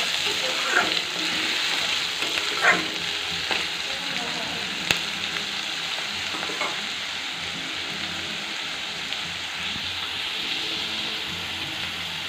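Sliced onions sizzling steadily in hot oil in a metal kadai, being fried till lightly reddish. A spatula scrapes and stirs them a few times in the first few seconds.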